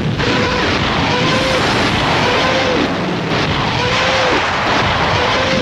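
German Panzerwerfer (Moaning Minnie) rocket barrage firing: a continuous roar of rocket engines, with a moaning shriek about once a second that holds and then drops in pitch as each rocket launches.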